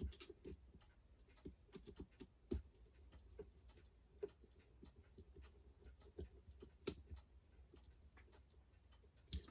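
Faint, scattered clicks and light taps of small hand tools and screws being handled while wire leads are fastened to a small electric motor's brush posts, with one louder click about seven seconds in.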